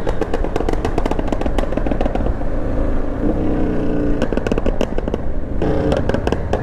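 Motorcycles on loud aftermarket exhausts revving and pulling away, with rapid popping and crackling from the exhausts.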